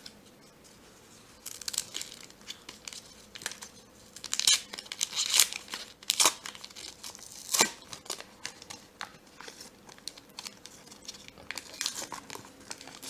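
Foil wrapper of a 1990-91 Upper Deck hockey card pack being torn open by hand: crinkling and crackling throughout, with several sharp rips between about four and eight seconds in.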